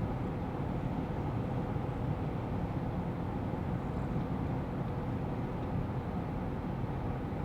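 Steady engine and road noise inside the cab of a GAZ Sobol van cruising on the highway.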